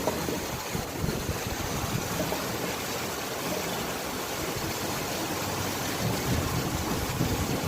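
Kitchen sink drain gurgling and churning with irregular low surges, as water and air are forced back up the pipe: heavy rain backing up a clogged drain line.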